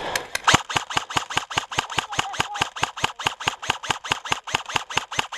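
Airsoft gun firing a rapid, steady string of shots, about seven a second, close by.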